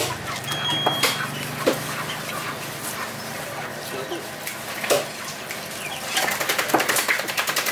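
A large knife scraping scales off a red snapper on a wooden chopping block, in quick repeated strokes that come thick and fast near the end.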